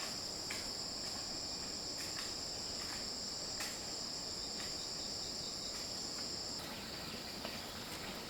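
Insects trilling in a continuous high-pitched chorus, steady throughout, with the sound thinning a little over six seconds in. A few faint clicks sound over it.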